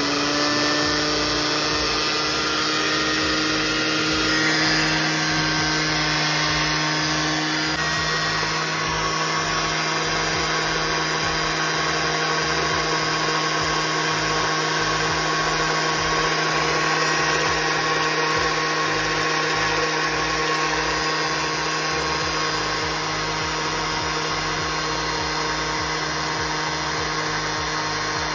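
Countertop blender motor running steadily at one speed, its tone shifting slightly about eight seconds in, blending eggs while oil is drizzled in slowly to emulsify them into mayonnaise.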